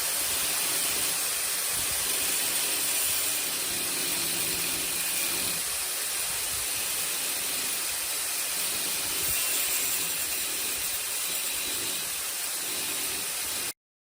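Makita 9553B angle grinder running, a loud steady hiss with a thin high whine through it, cutting off abruptly near the end.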